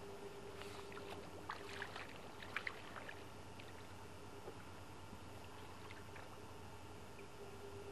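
Faint small splashes and clicks of water lapping at the lake's edge, bunched between about one and three seconds in, over a steady faint hum.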